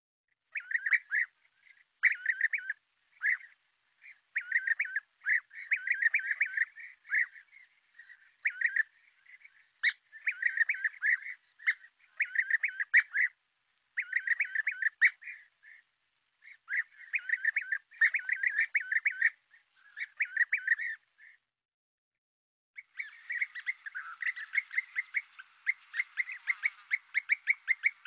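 European bee-eaters calling: short rolling, trilled calls repeated in bursts. After a brief pause about three quarters of the way through, the calls come denser and faster, as from several birds at once.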